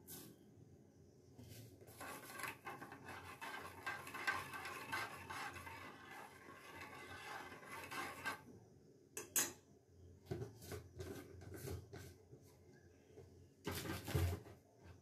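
A metal utensil stirring milk in a stainless-steel saucepan, scraping quickly against the pan for several seconds. Then come scattered clinks and a louder clank near the end.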